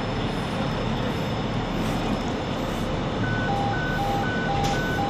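Steady vehicle-engine or traffic rumble, and from about three seconds in an electronic beeper starts, alternating a high and a low tone about four times a second.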